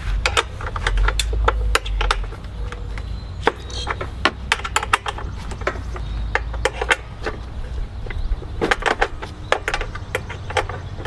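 Socket ratchet clicking in short, irregular runs, backing out the shroud bolts on a Briggs & Stratton 24 hp V-twin engine, with a quick run of clicks about nine seconds in.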